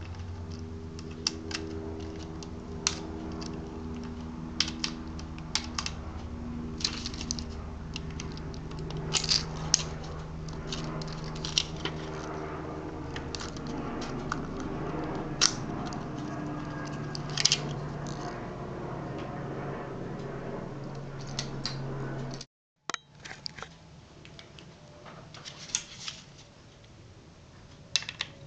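Scattered small clicks and taps of tools, screws and parts being handled while a PowerBook G4's hard drive is worked on, over a steady low hum. The sound cuts out briefly about 22 seconds in and is quieter afterwards.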